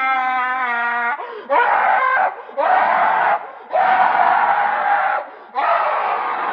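Tinky Tank creature sound effect: a held, wavering wail for about a second, then four harsh screeching shrieks with short breaks between them.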